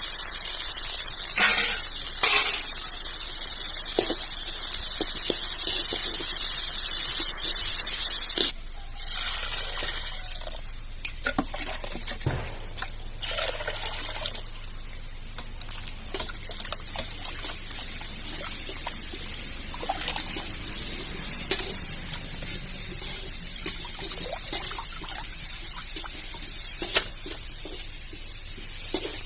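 Tomatoes frying in hot oil in a pan: a loud sizzle that drops suddenly about eight seconds in to a quieter sizzle, with scattered clicks of a ladle.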